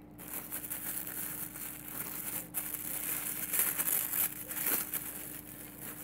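Tissue paper crinkling and rustling as hands handle and pull at a wrapped parcel, in irregular bursts.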